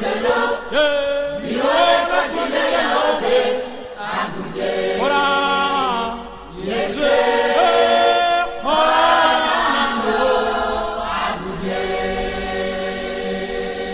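A group of voices singing a slow Christian chant, with long held notes.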